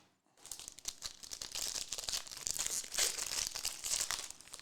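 Crinkly plastic wrapper of a trading-card pack being torn open and crumpled by hand, a dense run of crackling with many small sharp clicks.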